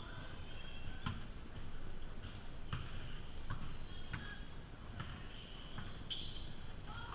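Basketball bouncing on a hardwood gym floor, a handful of irregular bounces, with short high sneaker squeaks from players running on the court.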